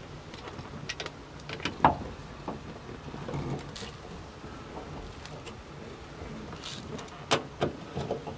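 Light clicks and knocks of a car's A-pillar trim strip being pressed against the pillar and fitted with a screwdriver. The loudest knock comes about two seconds in, and a quick run of clicks near the end.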